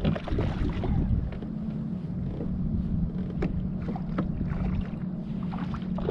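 Wind on the microphone with water lapping and ticking against a kayak's hull, and a steady low hum from about a second in.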